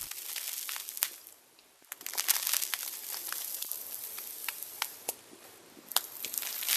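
Crackling noise with scattered sharp clicks and pops. It cuts out briefly about a second and a half in, then resumes.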